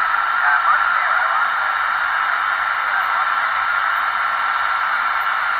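Amateur radio HF receiver's band noise: a steady hiss cut off above and below by the set's speech filter, with a steady high whistle running through it.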